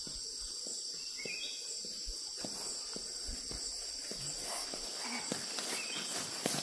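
Steady high-pitched chorus of insects droning without a break, with a few faint footsteps or small knocks scattered through it.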